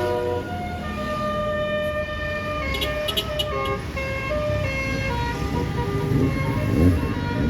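Bus telolet horn, a multi-trumpet air horn, playing a melody of short held notes that change pitch every fraction of a second, over a bus's engine running underneath. The engine rises in pitch near the end.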